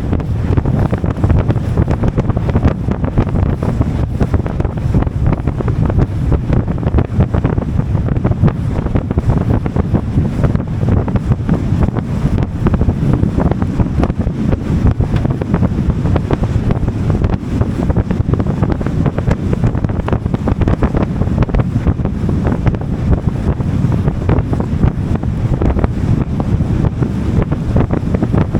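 Wind buffeting the microphone on a boat under way, a steady, dense rumble with water noise beneath it.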